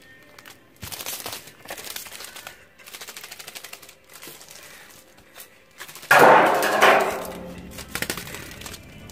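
Sticky tape stuck to a cat's paws crackling and slapping against concrete as the cat walks and shakes its legs: irregular clicky rattles, a quick run of clicks about three seconds in, and a loud crackling burst about six seconds in.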